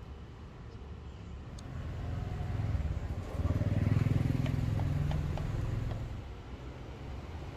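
A motor vehicle passing: a low rumble that builds from about two seconds in, is loudest in the middle and fades away, with a few light ticks near its peak.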